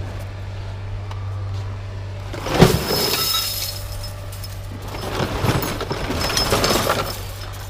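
Scrap being dropped or thrown onto a pile: one loud crash about two and a half seconds in, then more clattering and crashing, over a steady low engine hum.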